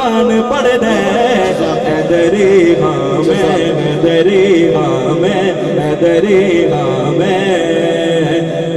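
A man singing a Punjabi naat into a microphone: one unbroken melodic line with wavering, ornamented held notes.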